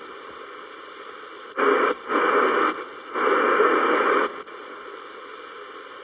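Portable radio hissing with static as its tuning dial is turned between stations. Three louder, rougher bursts of static come from about a second and a half in to past four seconds, then the even hiss returns.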